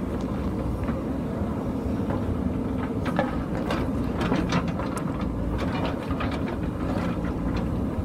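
JCB backhoe loader's diesel engine running steadily under load while the backhoe bucket works through rocky landslide debris. A run of sharp knocks and stone clatter comes in the middle seconds.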